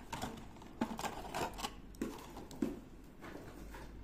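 Clear plastic packaging crackling and clicking as it is handled and pulled open around a dried swiftlet nest: a string of irregular clicks in the first three seconds, quieter near the end.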